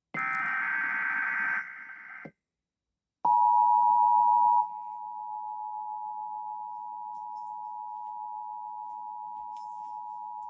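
Emergency Alert System broadcast tones from NOAA Weather Radio. It opens with a harsh, buzzy SAME digital header burst for about a second and a half. After a short silence, a steady alert tone starts about three seconds in, loud for a little over a second, then continuing at a lower level as the two-tone EAS attention signal, announcing a tornado watch.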